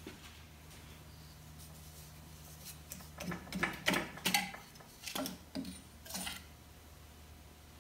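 Metal clinks and knocks of motorcycle front-fork parts being handled, the loose steel fork shroud bumping against the fork tubes and yokes. A quick run of about nine sharp clinks in the middle few seconds, over a faint steady low hum.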